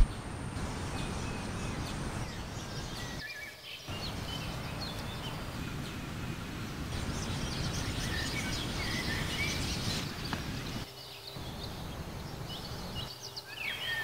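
Outdoor ambience: birds chirping now and then over a steady background hiss, which drops away briefly a few times.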